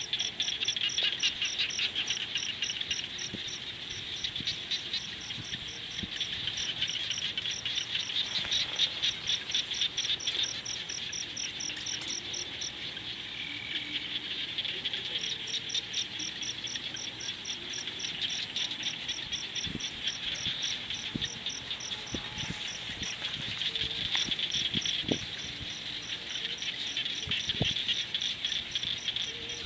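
Evening chorus of calling crickets and frogs: a dense high trill with a fast, even pulsing call above it that drops out twice for a few seconds. Faint pops from a campfire come in the second half.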